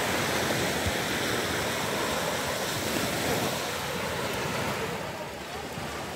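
Surf from small waves washing onto a sandy beach, a steady wash with some wind rumble on the microphone, easing slightly near the end.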